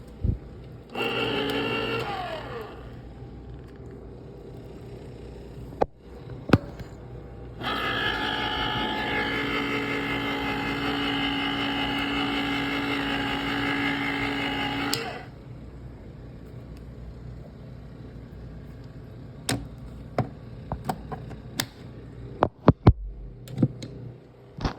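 Electric can opener running, a short burst and then about seven seconds of steady motor hum as it cuts around a tuna can, followed by scattered sharp clicks and knocks.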